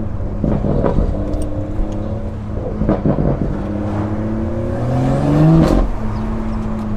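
BMW M140i's turbocharged 3.0-litre straight-six heard from inside the cabin through a 200-cell sports cat and double resonator delete. The exhaust drones steadily, rises in pitch as the car accelerates about five seconds in, then drops, with a few short pops along the way.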